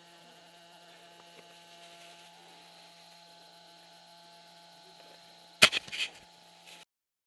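Steady low hum, then about five and a half seconds in a few loud rubbing knocks as a cloth rag is dragged across the head camera's microphone. The sound cuts off abruptly shortly after.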